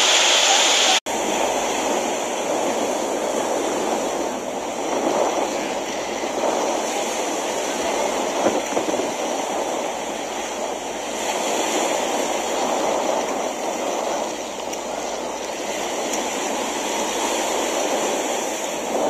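Small waves washing onto a sandy beach, a steady surf noise. It drops out briefly about a second in.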